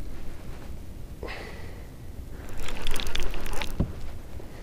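A small channel catfish being reeled in on a rod from a kayak: a burst of crackly, splashy noise from about two and a half seconds in, ending in a short dull knock, over a low steady rumble.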